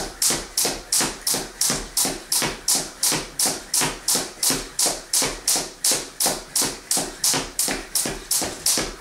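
Skipping rope turning steadily and slapping a wooden floor on every turn: a sharp, regular tick about three times a second.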